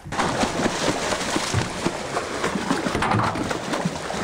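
A hooked tuna thrashing at the surface right beside the boat's hull: continuous heavy splashing and churning of water.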